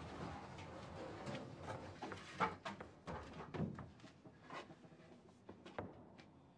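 Wooden knocks and creaks of attic boards and beams as a man moves about among them: an irregular run of thuds and clicks, the loudest about two and a half seconds in, growing sparser near the end.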